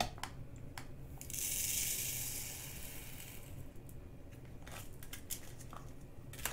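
A soft plastic rustle of diamond-painting drill bags and labels being handled, lasting about a second and a half, then a few faint light clicks.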